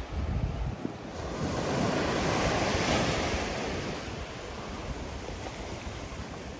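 Surf washing onto a sandy beach: a swell of wave noise rises about a second in and eases off a few seconds later, with wind buffeting the microphone at the start.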